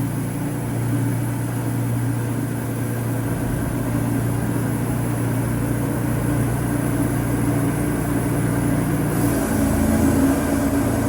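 Wood-Mizer LT40 Super sawmill's engine running steadily, its tone shifting about nine seconds in.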